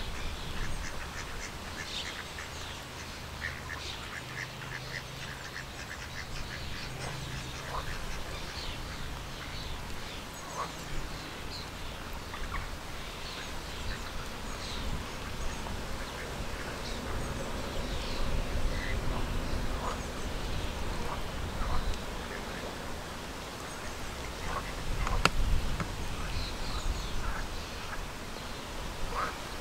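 Mute swan cygnets peeping in many short, high calls scattered throughout, over a steady low rumble. A single sharp click comes near the end.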